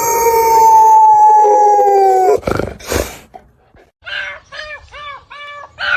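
Dog howling: one long, nearly level howl that ends about two and a half seconds in. Two short noisy bursts follow, then a string of short high calls, several a second.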